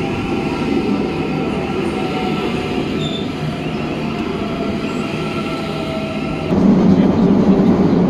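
Cairo Metro train moving along the platform with a steady whine made of several high tones over a rumble. About six and a half seconds in it changes abruptly to the louder, deeper rumble of the ride inside the carriage.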